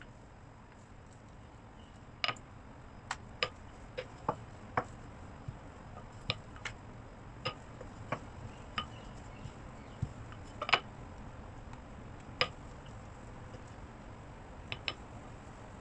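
Wooden rolling pin working scallion pancake dough on a silicone mat: irregular sharp clicks and light knocks as the pin is rolled and repositioned, with one louder knock a little past the middle.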